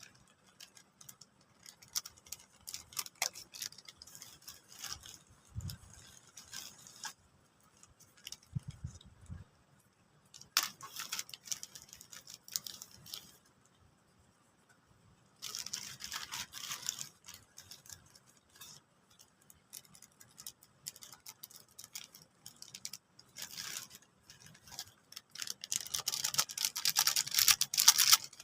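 Close-up eating sounds of fried rice with fried grasshoppers: chewing and small clicks and scrapes in irregular spells, densest and loudest near the end.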